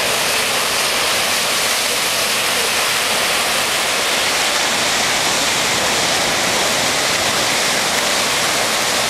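Rough ocean surf washing ashore: a loud, steady rush and hiss of churning water, with no single wave standing out.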